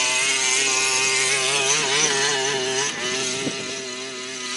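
Small combustion engine of a radio-controlled car running at high revs, its pitch wavering up and down with the throttle, a little quieter from about three seconds in.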